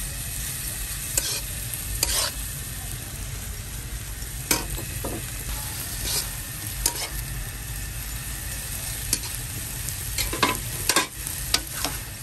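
Rice vermicelli and prawns sizzling in a hot, oiled nonstick wok as they are stir-fried, with irregular scrapes and taps of the spatula against the pan.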